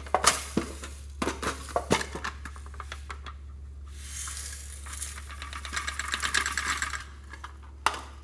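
A metal pencil tin clicking and knocking as it is handled and opened, then loose green sequins rattling out of the tin into a glass bowl for about three seconds, and one sharp click near the end as the tin is snapped shut.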